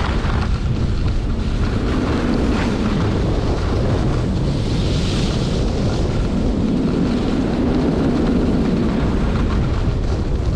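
Wind buffeting a moving skier's camera microphone, with the steady hiss of skis sliding over packed snow.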